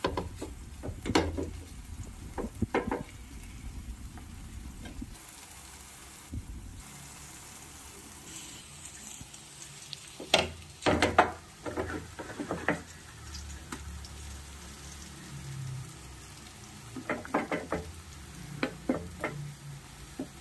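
Brinjal slices shallow-frying in oil on a pan, with a steady sizzle. A metal spatula scrapes and taps against the pan in short clusters of strokes: about a second in, in the middle, and near the end.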